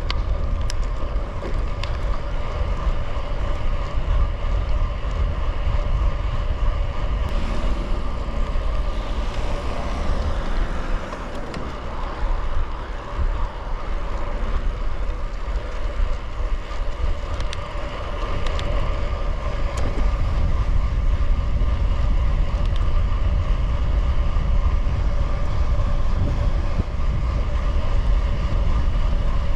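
Wind rumbling on the microphone of a gravel bike being ridden at speed, with a steady humming tone underneath.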